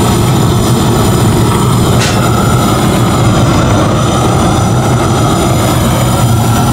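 GrillBlazer Su-VGun propane searing torch burning with a steady roar as its flame crisps pork belly skin into crackling, with one short tick about two seconds in.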